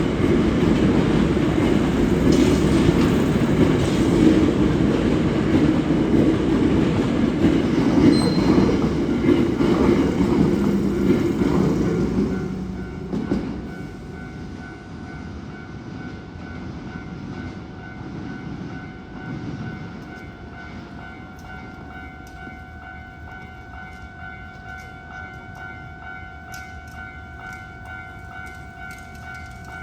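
A Hankyu electric train passing close by: loud rumble of wheels on rails for about the first twelve seconds, then fading away. A quieter steady ringing tone follows, the level-crossing warning signal.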